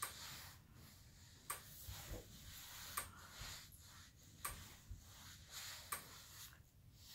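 A sharp click that repeats very evenly, about every second and a half, over soft rustling and rubbing as one horse scratches another's blanketed neck and withers with its muzzle and teeth.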